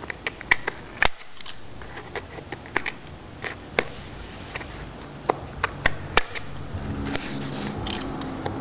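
Handheld corner-rounder punch clicking and snapping as it cuts the corners of a cardstock card: a dozen or so sharp, irregular clicks.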